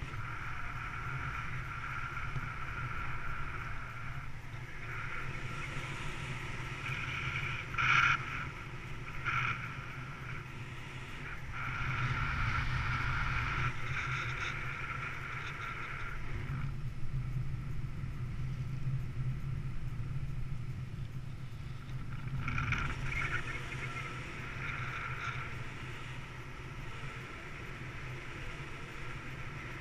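Airflow rushing over an action camera's microphone in paraglider flight, a steady low rumble with a higher tone that comes and goes. A brief louder gust about eight seconds in.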